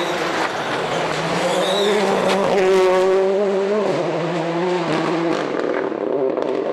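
Rally car engine at full load on a special stage, heard on board: revs climb for about a second, then drop sharply at a gear change or lift about four seconds in, with tyre and road noise and scattered sharp clicks.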